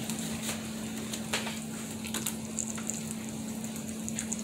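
Corn tortilla sizzling softly in a little olive oil in a hot nonstick skillet, with scattered faint crackles, as it is warmed until bubbles rise in it. A steady low hum runs underneath.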